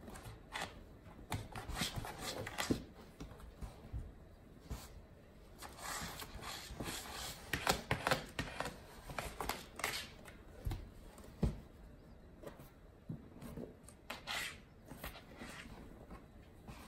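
Cardboard box being patted, scraped and rustled by small hands and a cat's paws: irregular taps and scratches, busiest in the middle, with two dull thumps a little after halfway.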